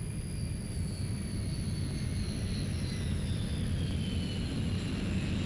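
Jet engines of the Boeing 747 Shuttle Carrier Aircraft on final approach just before touchdown: a low rumble growing slowly louder, with thin whine tones falling in pitch.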